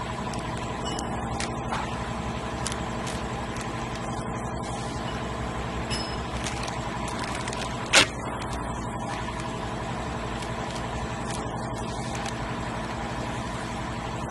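Steady hum of running machinery with several constant tones. About eight seconds in comes a single sharp crack, likely from a filled plastic snack bag being torn open.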